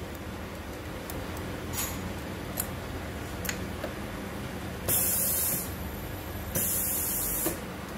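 Hinge riveting machine running a cycle: two short bursts of compressed-air hiss, about a second apart, over a steady machine hum, with a few light clicks of the hinge being set into the fixture before them.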